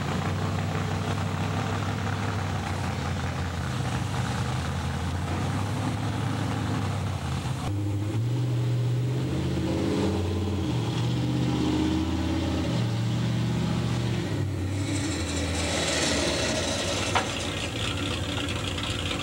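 Truck engines running: a steady idle, then, after an abrupt change about halfway through, a stretch where the engine pitch rises and falls as if revving, then a hissier stretch with a single sharp click near the end.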